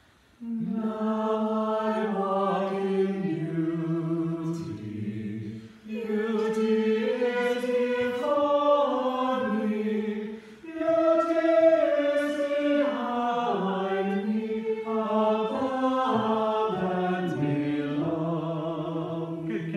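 A small choir singing unaccompanied in several parts, in sustained phrases with two short breaks for breath, about six and ten and a half seconds in.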